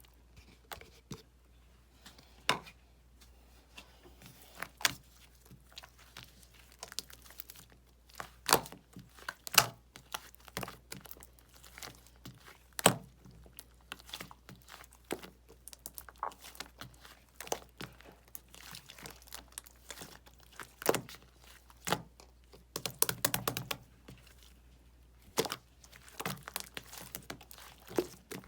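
Hand-played slime being squeezed, stretched and poked, giving irregular sticky clicks and small air-bubble pops, with a quick flurry of them about three-quarters of the way through.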